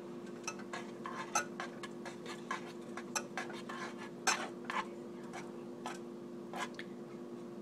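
Utensil clinking and scraping against a saucepan as warming honey is stirred, in irregular light clicks, the loudest about a second and a half in and again past four seconds. A steady low hum runs underneath.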